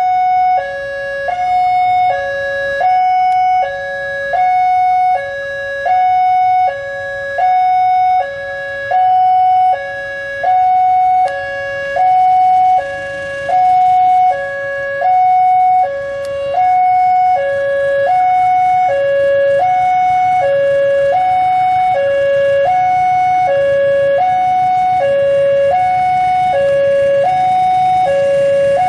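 Railway level-crossing warning alarm sounding its electronic two-tone signal, alternating a higher and a lower note about every three-quarters of a second, as a train approaches. The low rumble of the approaching train builds underneath in the second half.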